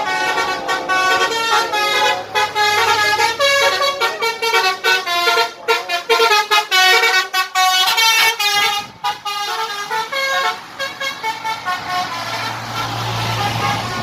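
A bus's Basuri telolet horn plays a fast, tuneful run of short notes, each a different pitch, for about ten seconds. A low steady hum comes in near the end.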